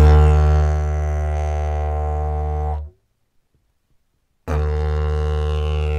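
Wooden didgeridoo played as a steady low drone with the lips sealed all round the mouthpiece. The first drone starts strong and holds for about three seconds. After a short pause a second drone begins, with a high overtone sliding downward through it.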